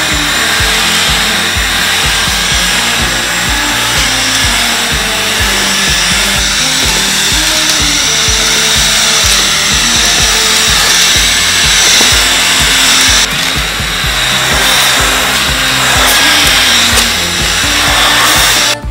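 Background music with a steady beat over the motor of an LG cordless stick vacuum's twin rotating wet-mop head running as it is pushed across a foam play mat. The high motor hum changes abruptly about 13 seconds in.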